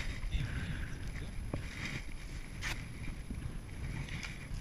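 Wind buffeting the microphone, a steady low rumble, with a single sharp click about two and a half seconds in.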